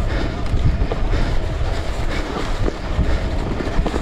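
Electric mountain bike riding downhill over rough ground: wind rumbling on the camera microphone, tyre noise and the bike rattling with many small irregular clicks.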